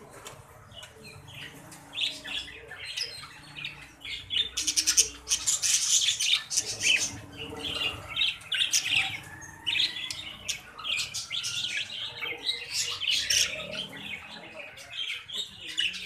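Budgerigars chirping and chattering in quick, high-pitched calls, starting about two seconds in and growing busier from about four seconds on.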